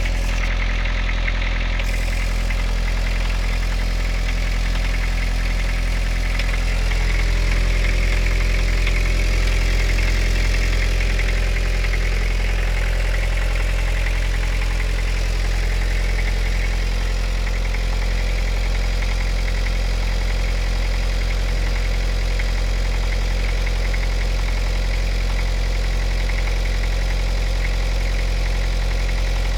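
Toyota 2C four-cylinder diesel idling cold, with a knock running through the steady idle. The owner hears this knock only on cold starts, finds it gone once the engine warms, and cannot tell what is knocking.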